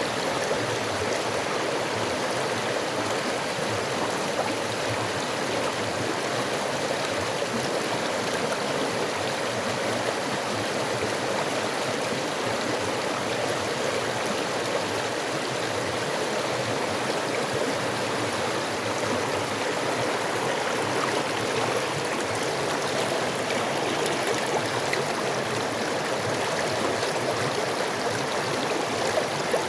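Creek water flowing and gurgling over rocks: a steady rushing babble without pause.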